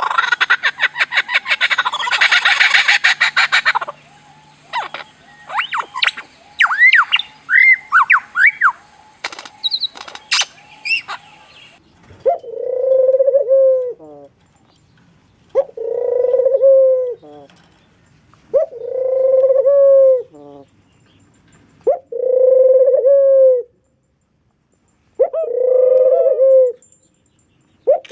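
A string of animal calls: a loud, rapid rattling call for about four seconds, then a run of short chirps. From about twelve seconds in, a long drawn-out call repeats six times, about every three seconds.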